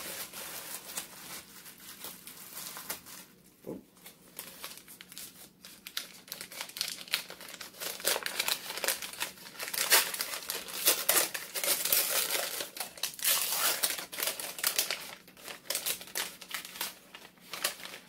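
Bubble wrap and brown kraft packing paper crinkling and rustling as a deck of playing cards is unwrapped by hand, in irregular crackles that are loudest in the middle.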